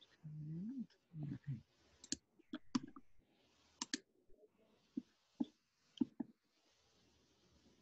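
About a dozen sharp, irregular clicks, bunched between about two and six seconds in, after a brief hum-like voice sound rising in pitch near the start.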